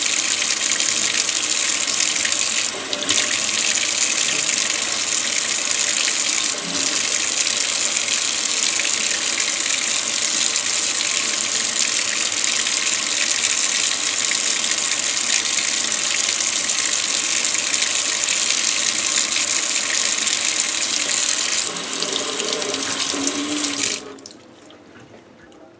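Kitchen faucet running into a stainless steel sink, the stream splashing over a knife blade held under it and wiped with a cloth. The water is shut off a couple of seconds before the end, and the sound drops away suddenly.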